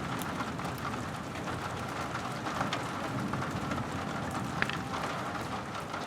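Rain falling as a steady hiss, with individual drops ticking on surfaces throughout and a couple of louder drops standing out.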